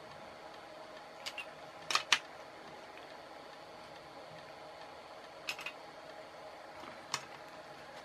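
Small clicks and taps of hands handling the plastic housing, wires and small circuit board of a car cigarette-lighter plug. A quick pair of clicks comes about a second in, a louder double click about two seconds in, another pair about five and a half seconds in and a single click near seven seconds, over a steady faint hum.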